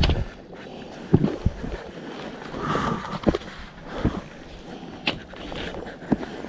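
Footsteps of hikers walking a mountain trail: irregular thuds and scuffs, about one or two a second.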